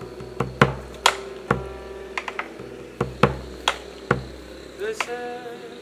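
Live Argentine folk music: acoustic guitar with a bombo legüero, sharp percussive strikes at an uneven beat and plucked guitar notes coming in near the end.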